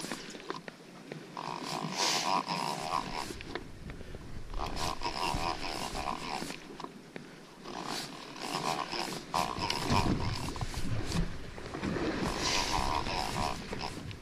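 Heavy conventional saltwater reel cranked in five spells of about a second and a half each, its gears whirring as line winds on, with short pauses between. A low rumble joins about two-thirds of the way through.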